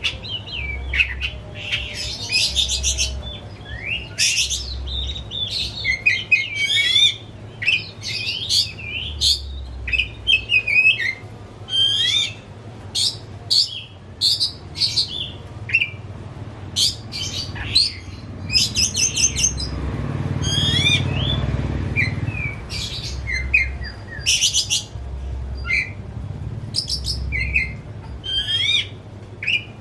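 Oriental magpie-robin singing a loud, varied song of sharp whistles, slurred glides and buzzy trills, phrase after phrase with short pauses. A low rumble swells underneath for a few seconds about twenty seconds in.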